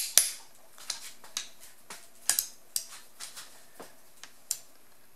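Torque wrench and socket on the cylinder head bolts during the 37 foot-pound tightening pass: a loud click right at the start, then about a dozen lighter, irregular clicks and taps as the wrench is worked and moved from bolt to bolt.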